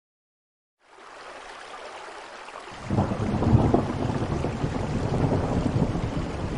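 Rain and thunder sound effect: a steady hiss of rain starts about a second in, then a low rumble of thunder comes in about three seconds in and keeps going, much louder than the rain.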